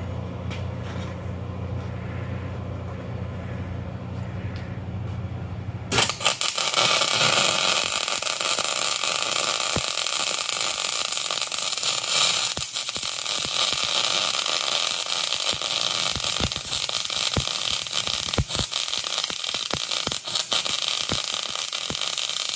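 For about six seconds an air-powered peening tool buzzes steadily against the weld on a cast nodular-iron axle housing. It then cuts off, and a wire-feed (MIG) welder arc takes over with a continuous crackling hiss and many sharp pops as the truss is welded to the housing.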